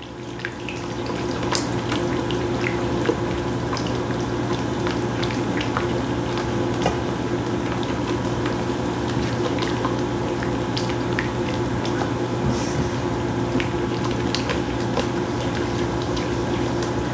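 A flour roux thinned with chicken broth bubbling and sizzling in a hot pan, with many small pops and clicks, over a steady low hum.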